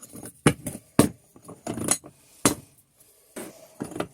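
Metal clinks and knocks as tools and the parts of a cast steel vise are handled, about six sharp hits spread irregularly.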